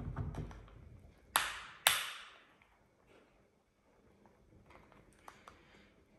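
Blue-and-gold macaw cracking a walnut shell with its beak. A low scraping at the start, then two loud, sharp cracks about half a second apart a little over a second in, and later a few faint clicks of beak on shell.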